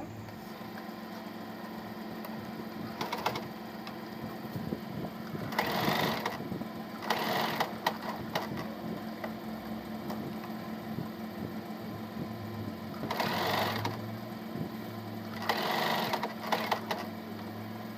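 Electric domestic sewing machine running steadily as it stitches through fabric, with a few short, louder bursts of noise along the way.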